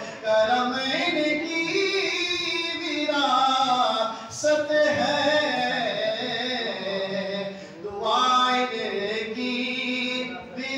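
A man singing an Urdu manqabat (devotional poem) unaccompanied into a microphone, in long wavering held notes, with brief breaks for breath about four and eight seconds in.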